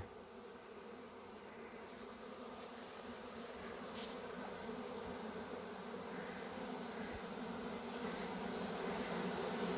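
Honey bee swarm buzzing, a steady hum that slowly grows louder. The swarm is leaving its cluster and moving into a hive box.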